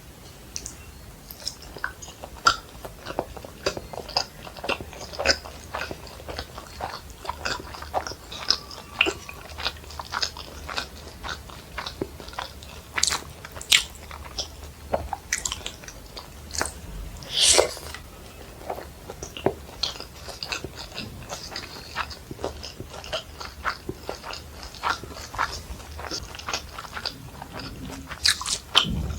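Close-miked eating sounds: a person chewing fried rice and Manchurian, with wet mouth clicks and smacks and occasional louder crunchy bites.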